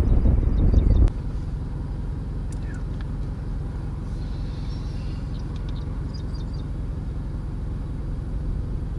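Wind buffeting the microphone for about the first second. The sound then cuts to a steady low hum of a vehicle engine idling, with a few faint high chirps.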